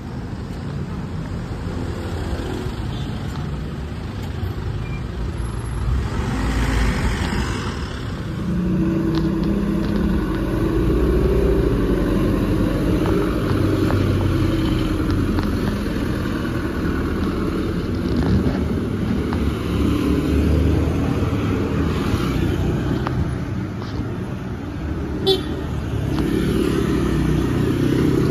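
Street traffic: a small garbage truck's engine running and pulling away, with motor scooters passing close by, the engine noise growing louder about a third of the way in. A brief high beep sounds near the end.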